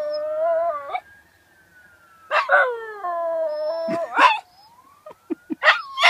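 Miniature Schnauzer howling along with a fire truck siren: a long held howl that breaks off about a second in, a second howl from about two seconds in that ends in yelps, then a few short yips near the end. The siren's faint wail falls and rises in the gaps between the howls.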